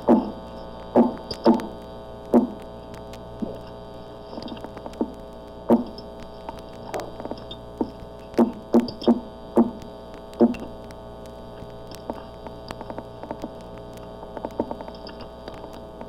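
A single sea catfish, held close to a hydrophone in an aquarium tank, making its percolator-like noise: short pitched pulses at irregular intervals, about fifteen in the first ten seconds, then only faint ticks. A steady recording hum runs underneath.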